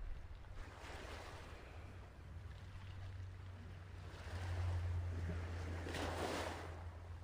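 Ocean waves washing in, a hiss that swells about a second in and again from about four to six seconds in, over a steady low hum.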